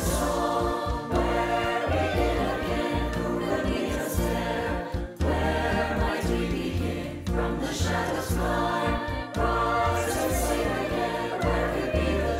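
A high school mixed choir sings in several parts over a low bass line. The voices were recorded separately and mixed together as a virtual choir.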